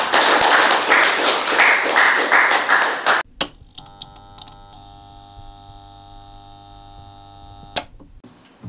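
Audience applauding, dense and loud, cut off abruptly about three seconds in. Then a faint steady musical chord is held until near the end.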